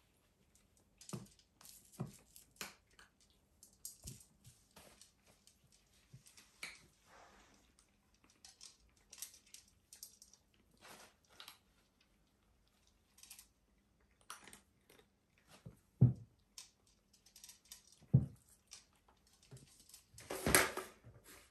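Two kittens play-wrestling on a tile floor and fleece blanket: scattered light scratches, taps and rustles from paws and claws, with two heavier thumps about three-quarters of the way through and a louder scuffle near the end.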